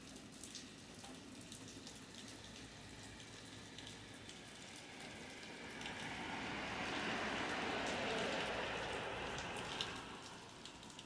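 Steady rain falling on pavement, with scattered close drops ticking sharply. Past the middle, a louder rushing hiss swells for about four seconds and then fades back.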